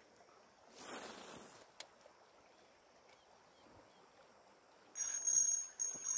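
A cast with a spinning rod: a short whoosh about a second in, followed by a single click. About five seconds in, a loud, steady high-pitched whir sets in.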